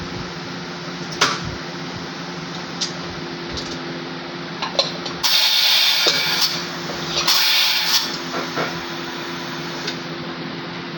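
Two loud hissing bursts of about a second each, the second shorter, over a steady electrical hum and scattered light clicks.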